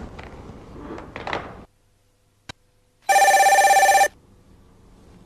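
Telephone ringing once: a single buzzy electronic ring about a second long, about three seconds in, with a faint click shortly before it.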